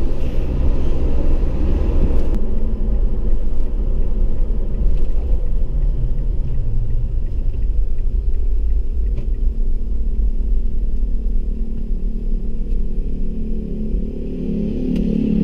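Steady low rumble of a car's engine and tyres heard from inside the cabin while driving slowly. It eases a little near the end as the car comes up to a stop.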